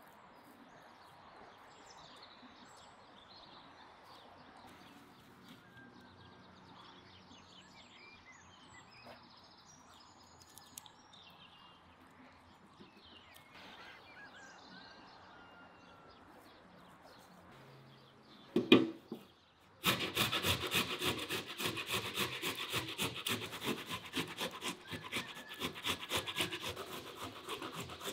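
Faint outdoor ambience with small bird chirps, then a sharp knock about two-thirds in. Then ripe tomatoes are grated on a stainless-steel box grater over a clay plate: quick, rhythmic, wet rasping strokes.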